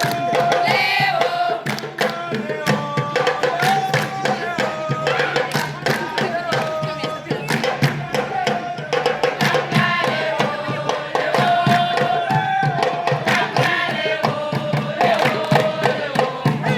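Voices singing a melody over fast, dense drumming.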